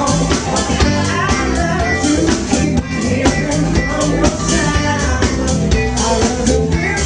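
Live soul/R&B band playing: drum kit keeping a steady beat under electric bass, electric guitar and keyboards.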